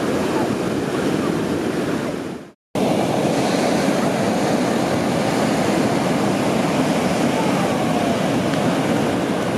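Pacific Ocean surf breaking and washing up the beach in a steady rush. The sound cuts out completely for a moment about two and a half seconds in, then the surf resumes.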